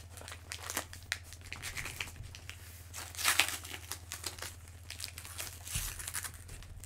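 A mailing package being crinkled and torn open by hand: irregular rustling and crackling, loudest about three seconds in, over a steady low hum.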